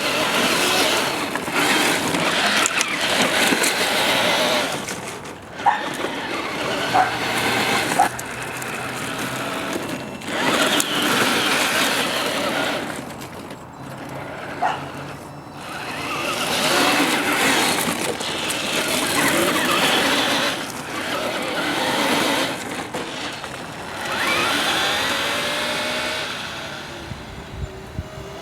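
3D-printed RC street car driving in repeated bursts of throttle, its electric motor and gearbox whining and the tyres scrubbing, with a few sharp clicks. Late on the whine glides up in pitch as the motor spins up.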